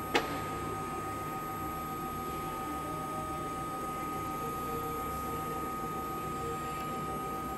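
Steady electric hum with a high, even whine from a WMW Zerbst CNC internal thread lathe standing under power, and one sharp click just after the start.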